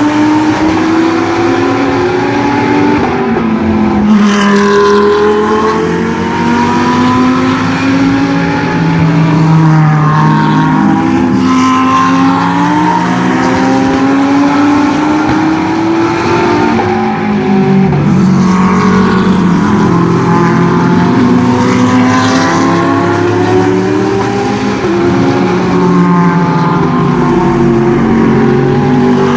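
Several GT3 race car engines running hard at once. Their pitch climbs through the gears, drops at each shift and falls away as the cars go past.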